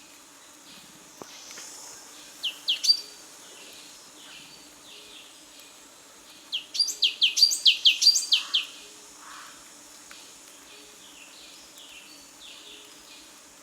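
Bird chirping: a quick cluster of three chirps about two and a half seconds in, then a rapid run of about eight chirps in the middle, over faint calls repeating steadily in the background.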